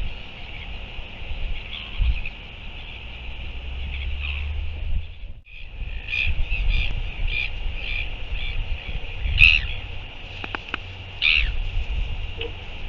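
Gulls calling in a run of short repeated cries, with single louder calls later, over wind rumbling on the microphone.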